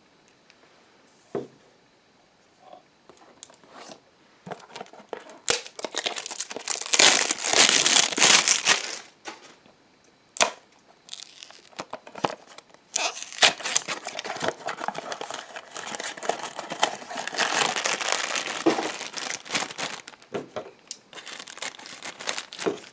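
Crinkling and tearing of a blind-box toy's packaging as it is opened by hand: a few sharp clicks at first, then bursts of crinkling from about five seconds in, loudest a little past the middle of the first half, and a longer run of crinkling and tearing through most of the second half.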